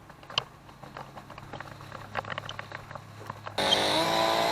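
Faint scattered ticks and knocks, then about three and a half seconds in a chainsaw comes in suddenly and runs steadily.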